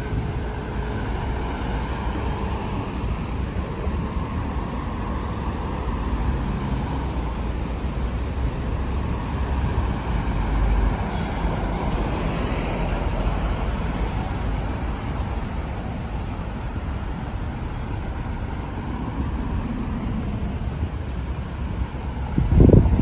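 Steady city road traffic of double-decker buses and cars driving past, swelling and fading as vehicles go by. Near the end a short burst of wind buffets the microphone.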